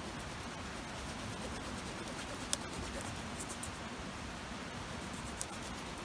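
Victorinox Swiss Army knife cutting at the base of a thin sapling stem: faint scratchy scraping of the blade on the wood, with a sharp click about two and a half seconds in and another near the end.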